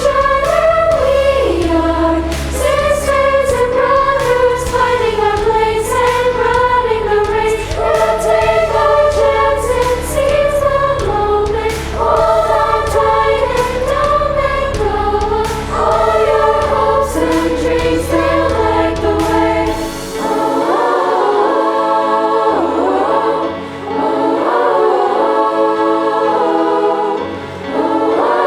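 Girls' choir singing in parts over a low accompaniment with a light percussive beat. About two-thirds of the way through, the accompaniment drops out and the voices carry on nearly alone.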